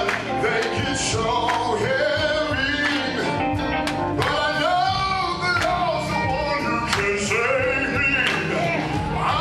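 Live gospel music: a man singing lead into a microphone over band accompaniment, with drum and cymbal hits.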